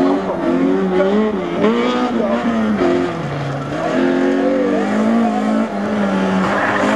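Peugeot 106 rally car engine revving hard, its pitch climbing and falling again and again through gear changes and corners.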